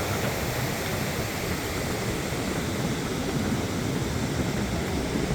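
Steady rushing of ocean surf on the beach.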